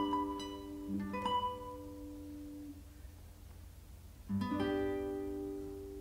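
Solo classical guitar playing the closing bars of a piece: a few plucked notes and a chord that dies away, then a final chord about four seconds in, its notes entering one after another and left to ring.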